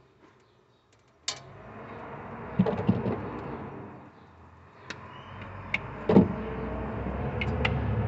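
Light clicks and a snip from cutting pliers and thin wires being handled while splicing a refrigerator sensor lead, over a steady low rumble that comes in suddenly about a second in and slowly grows louder.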